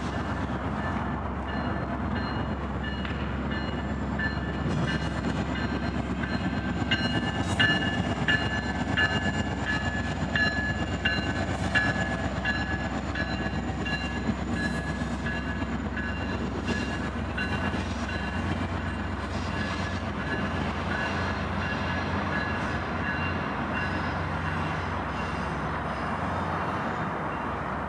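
FrontRunner diesel-hauled commuter train passing at low speed: a steady locomotive engine drone under the rumble of wheels on rail. Wheels clicking over rail joints, with a few thin high squealing tones, grow loudest about a quarter to halfway through, then the train fades as it moves away.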